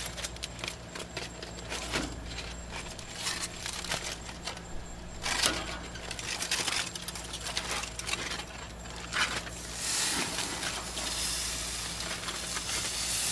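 Metal grill tongs clinking and scraping on the grate amid crinkling aluminium foil as a rack of ribs is lifted out of its foil pack. From about ten seconds in, a steady hiss of juices sizzling on the hot grill joins in.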